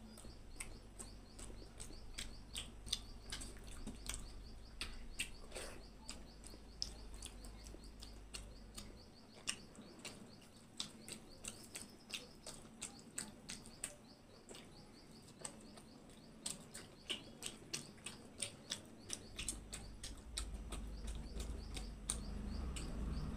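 Close-up eating sounds: a person chewing crisp papad and khichdi, with many sharp crunchy clicks and wet mouth sounds scattered throughout.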